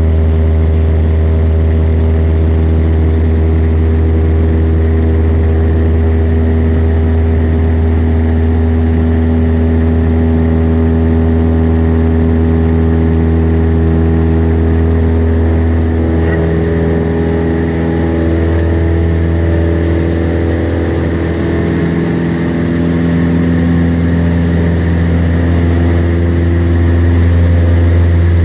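Cessna light aircraft's piston engine and propeller running in a steady drone, heard from inside the cabin; the engine note shifts slightly about halfway through and grows a little louder near the end.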